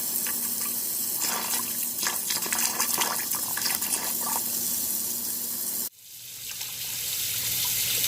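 Hot tap water running and splashing as it is flushed through a dishwasher part in a sink to blow out trapped grime. The sound drops out abruptly about six seconds in and swells back.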